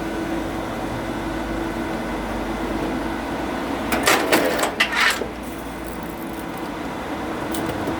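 Steady machine hum, broken about four seconds in by a short cluster of sharp cracks and knocks over about a second, as oak firewood is split.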